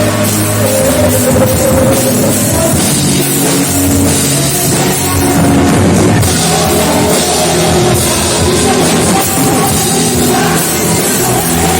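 Loud band music with a drum kit, playing continuously.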